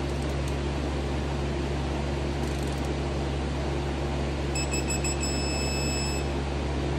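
A digital torque-angle tool gives a high-pitched electronic beep lasting about a second and a half, past the middle, the signal that a head bolt has been turned through the set 90 degrees. Under it runs a steady low machine hum.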